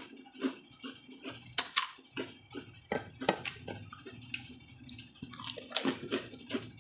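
Close-up crunching and chewing of crispy fried pork chicharon: irregular crisp cracks and crackles, several a second.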